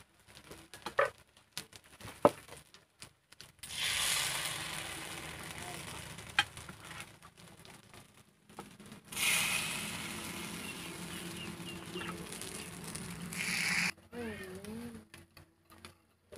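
Batter sizzling in the hot wells of a multi-well cake mould pan, in two bursts that start suddenly about four and nine seconds in and each fade over several seconds. A couple of sharp taps come earlier, and a voice near the end.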